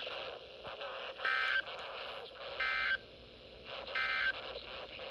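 Emergency Alert System end-of-message signal: three short, identical bursts of the SAME data code's warbling two-tone chirp, about a second and a half apart, over receiver hiss. The bursts mark the end of the alert broadcast.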